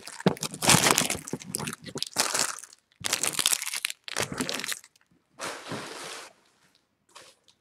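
A stack of baseball trading cards being thumbed through quickly, each card sliding off the stack with a papery rustle and snap. The run stops about five seconds in, followed by two shorter rustles.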